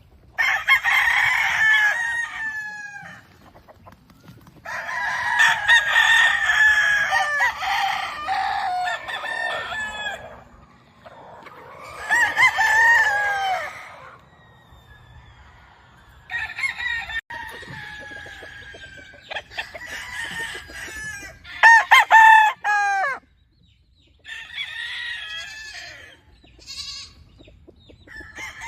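Roosters crowing one after another, about seven long crows with some running into each other, with quieter gaps between them.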